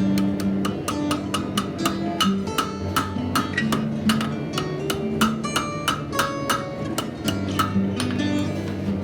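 Background music: an instrumental passage with sustained notes and sharp, ringing percussive hits at about three to four a second.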